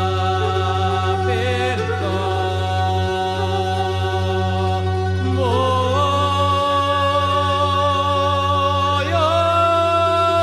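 Rhodope folk song: a man singing long, ornamented held notes over a steady low drone, sliding into a new note about halfway through and again near the end.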